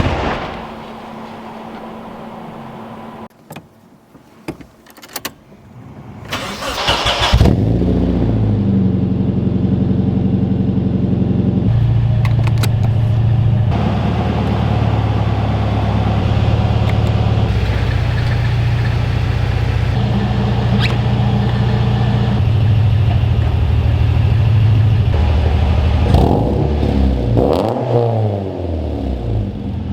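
Nissan 240SX's KA24DE four-cylinder engine starting about seven seconds in, after a few clicks, and then idling steadily. The revs are blipped a couple of times near the end.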